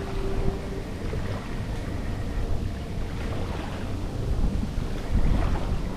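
Gusty wind buffeting the microphone over the wash of choppy river waves, strongest in the low end and surging unevenly.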